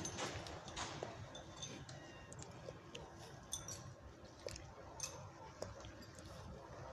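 Dry fallen leaves crackling and rustling underfoot, a scatter of light irregular clicks that is loudest in the first second.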